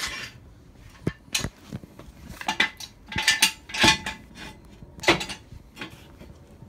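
Small metal parts clinking and rattling: a string of sharp clinks, some ringing briefly, loudest a little past the middle and again about five seconds in.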